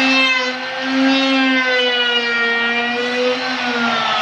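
Handheld electric trim router running at full speed while cutting a moulding along the edge of a wooden board: a steady high whine that wavers slightly in pitch as the bit takes the wood, dipping briefly in loudness about half a second in.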